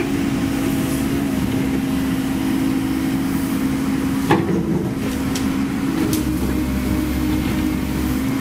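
Hydraulic excavator's diesel engine running steadily under work, with one sharp metallic knock about four seconds in.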